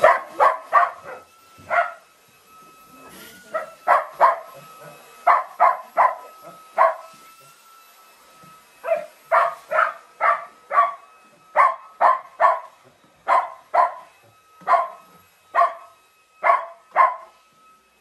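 Shetland sheepdog barking over and over: short, sharp barks, mostly in quick pairs and threes, with a brief pause about seven seconds in before it starts again.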